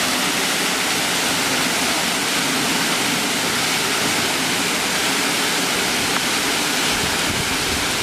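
Waterfall pouring onto rocks and into a shallow stream: a steady, loud rush of falling water.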